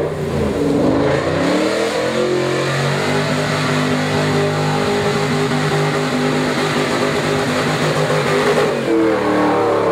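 Off-road 4x4 engines revving hard in a muddy water hole, with water and mud splashing from spinning wheels. The revs climb over the first two seconds and are held high, then dip briefly near the end and climb again.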